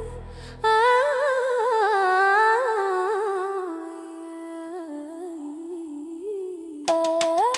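Wordless humming melody of a song intro: one voice holding and gliding between notes, with a brief dip in level just before it comes in.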